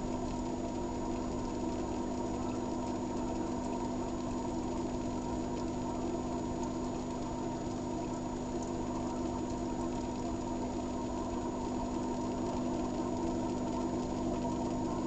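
Steady hum of a motor running at constant speed, one unchanging pitch with a buzzy edge.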